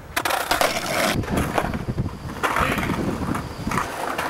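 Skateboard wheels rolling over rough pavement, a continuous gritty rumble broken by sharp clacks and knocks, with wind on the microphone.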